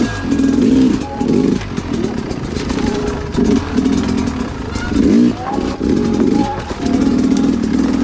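Two-stroke dirt bike engine revving up and down in repeated throttle blips, its pitch rising and falling.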